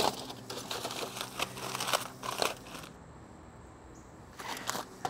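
Aluminium foil crinkling and crackling in quick irregular strokes as it is pulled back from smoked spare ribs, going quiet for about a second past the middle before crinkling again near the end.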